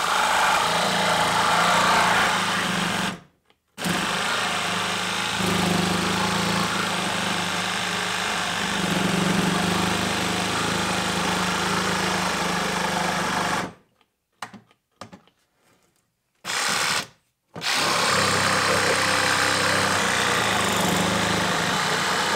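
Hyper Tough 20V cordless reciprocating saw with its stock wood blade cutting through a 2x4, the motor running steadily as the blade saws through the wood. It stops for a moment about three seconds in, and again for about four seconds past the middle with one short burst in between, then runs on.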